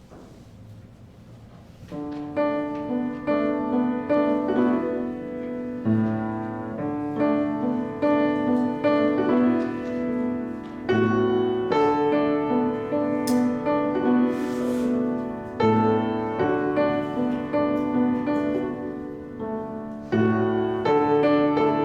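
Solo piano playing a slow, chordal piece, coming in about two seconds in with chords struck roughly once a second.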